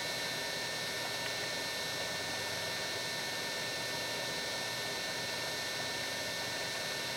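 Milling machine running steadily with its vertical head powered: an even hiss and hum with thin, high, steady whining tones, unchanging throughout.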